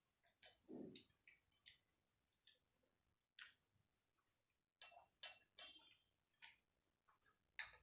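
Faint eating sounds: irregular wet clicks and smacks of chewing, with soft squishes of food.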